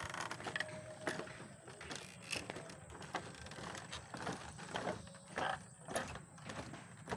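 Footsteps on a wooden plank boardwalk: a run of irregular soft knocks, about one to two a second.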